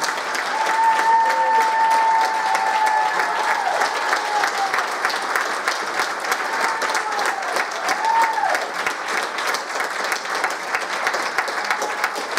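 An audience applauding at the end of a stage performance: dense, steady clapping from a large seated crowd. A few drawn-out voice-like calls rise above it, one long one starting just after the beginning and a shorter rising-and-falling one about eight seconds in.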